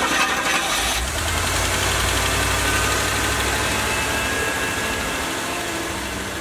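Rolls-Royce Silver Spur's 6.75-litre V8 idling steadily just after being started, a low, even rumble.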